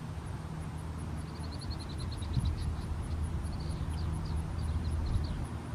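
Low steady rumble of wind on the microphone, with a faint high bird trill of quick notes about a second in and a few more faint chirps in the middle.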